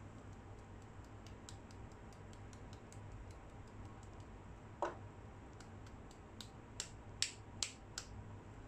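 Wooden spatula stirring sticky, syrup-coated boondi in a nonstick pan: faint scattered ticks, one sharper knock about halfway, then a quick run of four or five louder clicks near the end, over a low steady hum.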